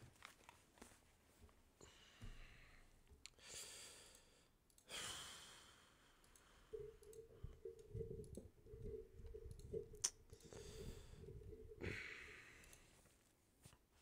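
Near silence at a desk microphone: a person breathing and sighing close to the mic, with a few faint clicks. In the second half a faint broken hum and soft low knocks come in.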